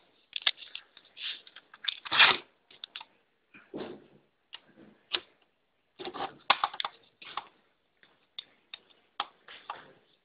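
Irregular clicks and rustles of a homemade USB power cable and its plugs being handled and plugged into a laptop and a DSL modem.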